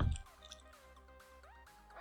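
Background music with steady held notes, opened by a loud low thump right at the start, like something bumped or set down.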